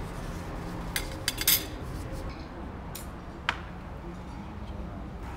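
Porcelain tea bowls and cutlery clinking against a glass tabletop: a handful of sharp clinks, bunched together about a second in with the loudest just after, then two more around three seconds in, over a low steady room hum.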